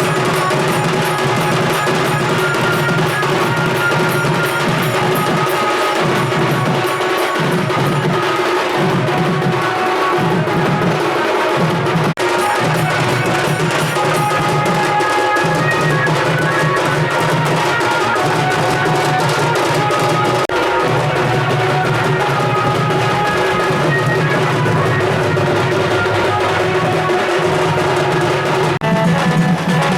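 Loud music with drums and percussion playing continuously.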